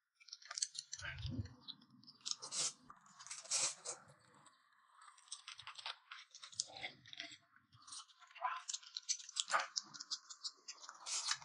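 Faint eating sounds: noodles slurped and chewed, with scattered short clicks of chopsticks and a spoon.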